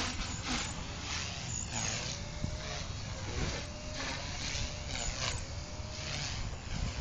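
Align T-Rex 250 electric RC helicopter in flight. Its faint whine bends up and down in pitch and swells into a rushing surge every second or so as it moves about the sky.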